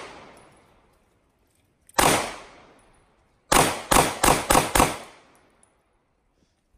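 Pistol shots: a single shot about two seconds in, then a quick string of five shots about a second and a half later, each trailing off.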